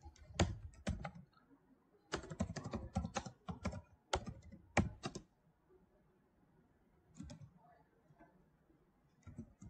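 Computer keyboard typing: quick runs of keystrokes for about the first five seconds, a short pause, then a few scattered key presses near the end.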